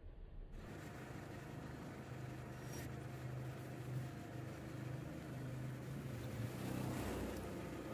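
Truck engine running with a low, steady hum as the truck rolls slowly across a concrete floor.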